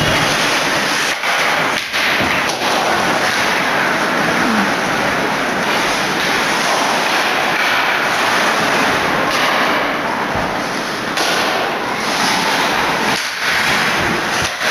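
Loud crowd cheering and yelling at an ice hockey game, a steady roar, with a few sharp knocks about one to three seconds in.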